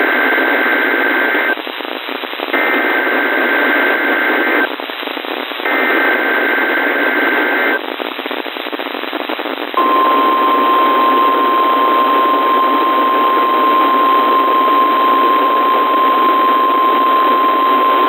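NOAA Weather Radio Emergency Alert System activation heard through a weather radio with steady static hiss: three bursts of SAME header data tones, each about two seconds long with a second of hiss between them, the first already under way. About ten seconds in, the steady 1050 Hz warning alarm tone starts and holds, signalling a Tornado Watch.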